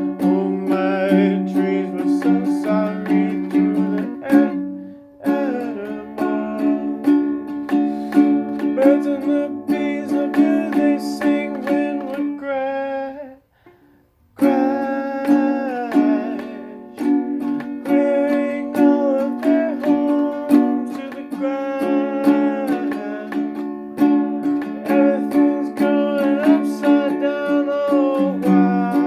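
A home-recorded song: chords strummed steadily on a small acoustic string instrument. The playing breaks off for about a second halfway through, then starts again.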